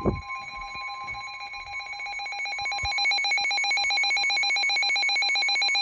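Rapid electronic trill of an emergency alert tone on weather-alert relay equipment, rising in level over the first few seconds and then holding steady, like a ringing telephone bell.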